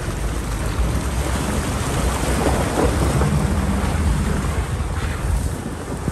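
Off-road vehicle driving through a shallow creek crossing: water splashing and churning under the tyres over a steady, heavy low rumble.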